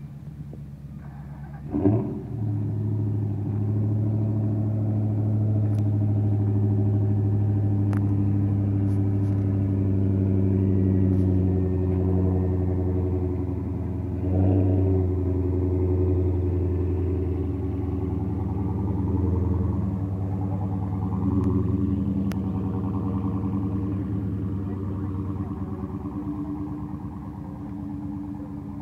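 A car engine idling steadily, with a sharp loud burst about two seconds in and short rises in revs about halfway through and again a few seconds later.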